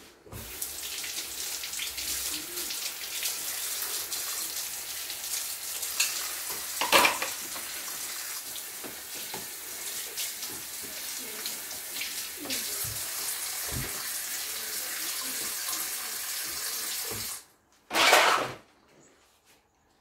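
Kitchen tap running steadily into a sink, with a few knocks and clinks against it; the water is shut off abruptly about seventeen seconds in, followed by a short burst of noise.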